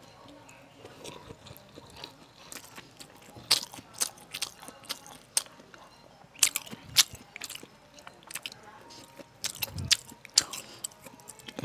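A person chewing crunchy food with a microphone held right at the mouth: sharp, irregular crunches and clicks with quieter wet chewing between them, sparse at first and coming thicker from a few seconds in.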